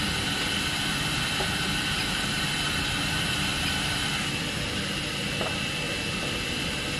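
Steady hum and hiss of running factory machinery, with a constant high whine over it.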